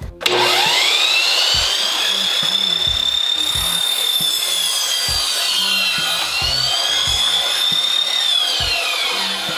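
Sliding compound miter saw cutting a wooden board. The motor spins up to a high whine over a rasping cut, dips in pitch about six seconds in, recovers, and winds down near the end.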